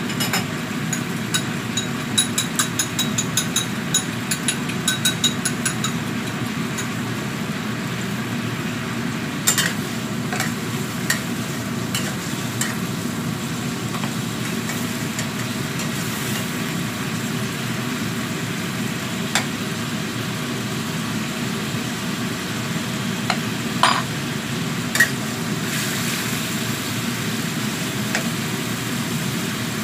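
Metal spatula stirring and scraping sliced bottle gourd in a wok of bubbling, sizzling liquid. There is a quick run of ringing metal clinks in the first few seconds and a few single clicks later, all over a steady low hum.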